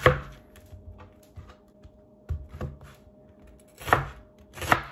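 Chef's knife cutting through an onion and knocking down on a cutting board in separate strokes: one at the start, two around the middle, and two louder ones near the end.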